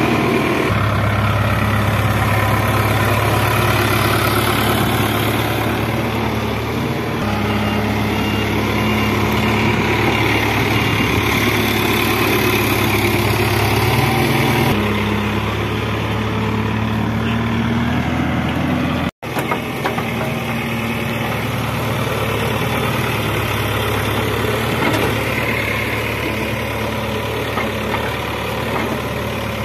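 Case 770EX backhoe loader's diesel engine running steadily, its speed stepping up and down a few times as the machine works and drives. The sound cuts out for an instant about two-thirds of the way through.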